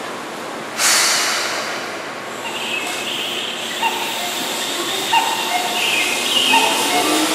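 Keihan 6000-series electric train pulling into a station platform: rushing noise rises sharply about a second in as it comes past, then squeals come and go from the wheels and brakes as it slows.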